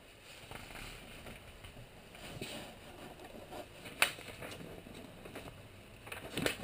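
Self-adhesive foil-faced window flashing and its backing sheet rustling and crinkling as they are handled, peeled and pressed down by hand, with a sharp snap about four seconds in.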